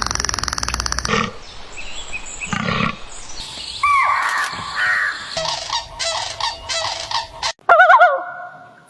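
A string of short animal and bird calls cut one after another, each a different kind of call. A steady rhythmic rattling noise stops about a second in, and the loudest calls, with a wavering pitch, come near the end.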